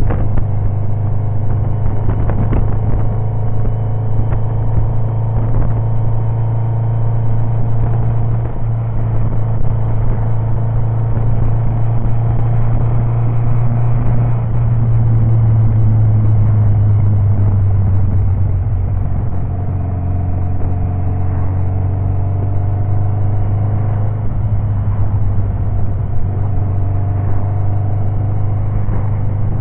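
Kawasaki 1000GTR motorcycle's inline-four engine running steadily as heard from a camera mounted on the bike, its pitch rising and easing a couple of times in the second half.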